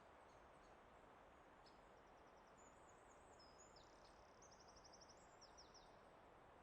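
Faint forest ambience: a soft, steady hiss with a small songbird singing a string of high, short chirps and a quick rapid trill in the middle.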